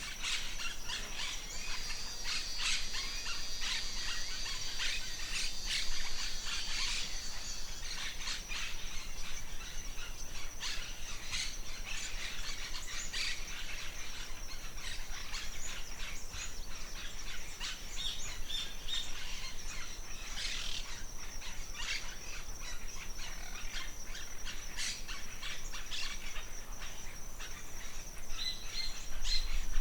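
Forest birds chirping and calling, many short overlapping calls, over a steady high-pitched drone.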